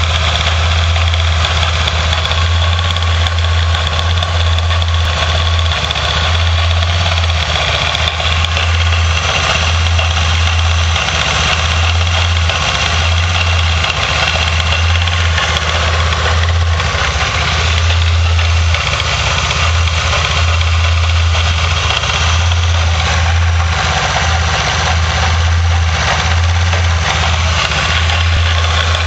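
Hyosung Comet GT 125's small V-twin engine running steadily at idle, with an odd mechanical noise that the owner believes comes from the top end of the rear cylinder.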